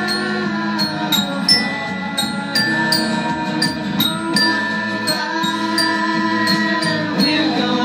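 Glockenspiel struck with mallets, a steady run of bright ringing notes about three a second, over an instrumental backing track with sustained chords.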